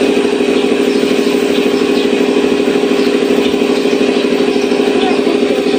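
A small engine running steadily nearby, a loud even hum with a fast pulse.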